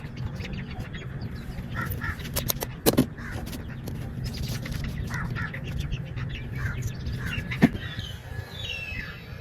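Birds calling and chirping, broken by two sharp knocks, one about three seconds in and another about two-thirds of the way through.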